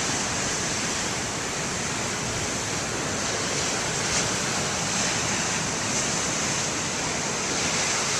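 Heavy ocean surf: big waves breaking in a steady, continuous rush of water.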